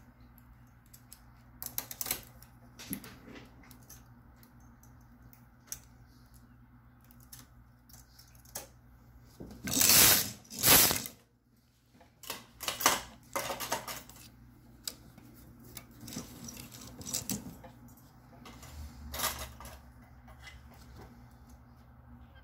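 Light metallic clicking and clinking of a Brother knitting machine's needles and the hand tools as stitches are moved on the needle bed, with two louder noises a little under a second apart about ten seconds in.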